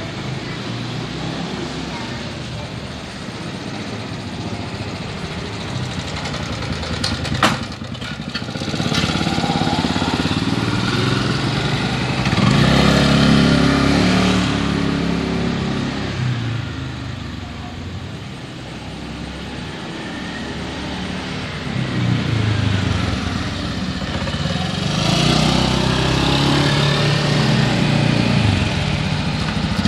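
Motorcycles and cars passing on a street, engines swelling as they go by and fading away, with a louder pass about twelve seconds in and another near the end. A single sharp click about seven and a half seconds in.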